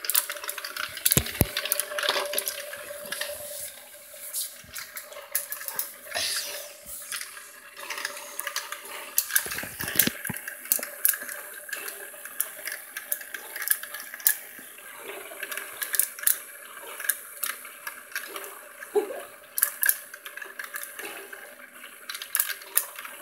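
A motorised tornado-in-a-tube toy running: water swirling in a vortex inside a clear plastic cylinder, over a steady motor hum, with frequent light clicks.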